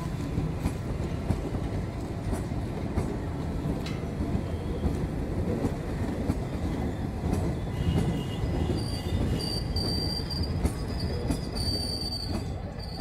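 Indian Railways passenger train of blue coaches rolling past close by: a steady rumble of wheels on rail, broken by repeated clacks as the wheels cross rail joints.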